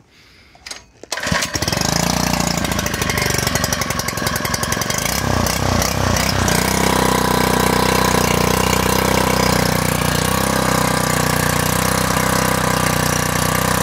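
Harbor Freight Predator 79cc single-cylinder four-stroke engine on a repowered MTD wheel edger, pull-started on the choke. It catches about a second in and runs unevenly for a few seconds, its speed wavering, then settles into a steady idle from about six and a half seconds in, sounding good to its owner.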